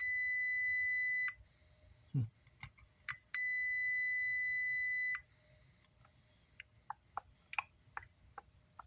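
Digital multimeter's continuity beeper sounding twice, steady high beeps of about a second and a half and two seconds, the meter's signal of a low-resistance path between the probes while parts are checked for a short. Afterwards come a series of light clicks.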